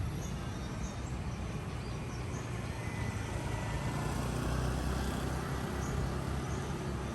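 City street ambience: a steady low rumble of traffic that swells slightly about four to five seconds in as a vehicle passes, with a few faint, short high chirps.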